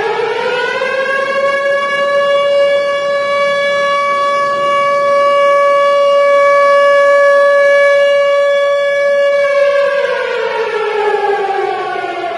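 Civil defense siren wailing. It rises in pitch over the first second or so, holds one steady tone for about eight seconds, then winds down, falling in pitch, near the end.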